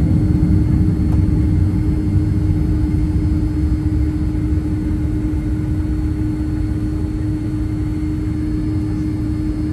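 Boeing 767-300 jet engine and airflow noise heard inside the cabin: a loud, steady roar with one held hum over it, easing slightly over the seconds.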